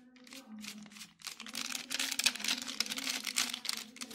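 Plastic spice packet crinkling and rustling as chicken 65 masala powder is shaken out, sparse at first and thickening into a dense crackle about a second and a half in, over a steady low hum.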